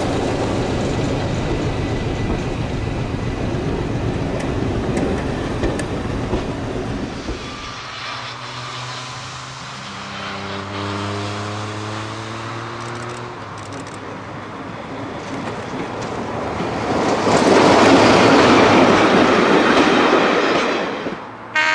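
Heritage diesel locomotive working a train past on the line, with heavy running noise at first. About ten seconds in, a steady engine note rises in pitch, and near the end the noise swells loud again.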